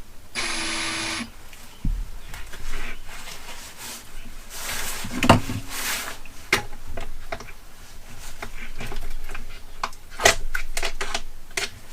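A small electric motor whirs steadily for about a second near the start, a power driver turning on a screw. Then come scattered clicks, taps and short scrapes of hex tools and small metal screws and parts being handled on the RC car's chassis.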